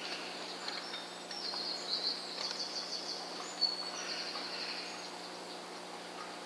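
Birds chirping and twittering over steady outdoor background noise, with a faint low hum underneath and one small click about three and a half seconds in.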